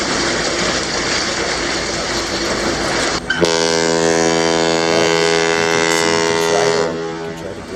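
A steady rushing noise, then about three seconds in a ship's horn sounds one long steady blast lasting about three and a half seconds before fading away.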